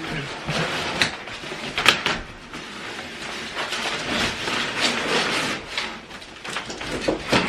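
Cardboard packaging of a boxed mini refrigerator being handled: irregular scraping and rubbing, with a couple of sharp knocks in the first two seconds.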